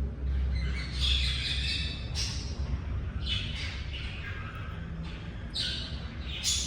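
Cockatiel squawking: three harsh calls of about a second each.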